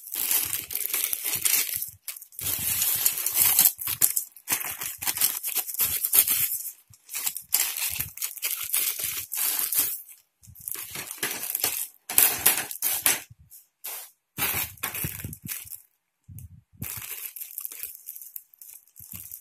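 Plastic packaging crinkling and rustling in irregular handfuls with short pauses, as the plastic sleeve is worked off the bag's frame rods and a small plastic bag of connectors is opened.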